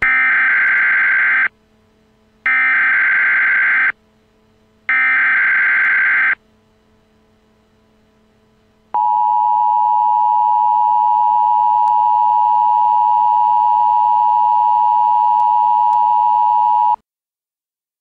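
Emergency Alert System SAME header: three bursts of warbling digital data tones, each about a second and a half long, followed by the EAS two-tone attention signal, a steady dual-tone beep held for about eight seconds that cuts off sharply. Together they mark the start of a new alert.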